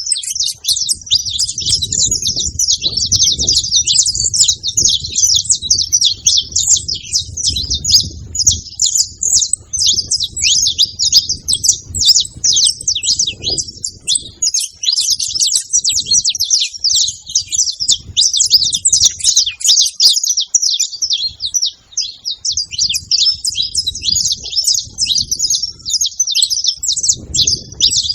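Saffron finches, a male and a female, chirping and calling nonstop in a dense, rapid stream of high notes.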